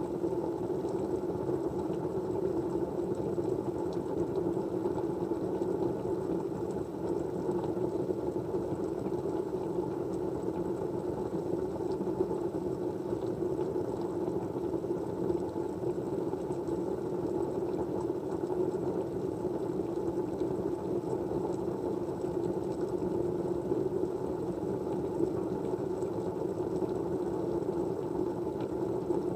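Steady white noise: a low, even rushing hum with no breaks or changes, and a faint high whine above it.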